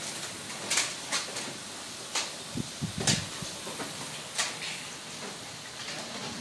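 Hot oil sizzling steadily in a large kadhai as imarti batter is piped into it from a cloth, with a few sharp clicks scattered through.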